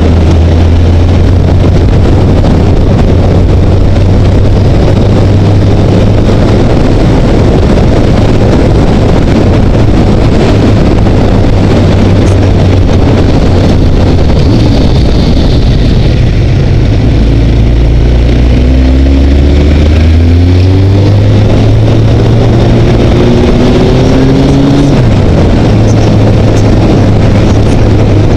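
Honda CBR900RR inline-four motorcycle engine running under heavy wind rumble on a helmet-mounted camera, at a steady low note through the first half. In the second half the engine pitch rises twice as the bike accelerates.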